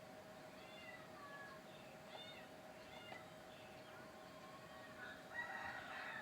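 Chickens calling faintly, short arching chirps repeating about once a second, with a louder rooster crow about five seconds in. A steady faint hum runs underneath.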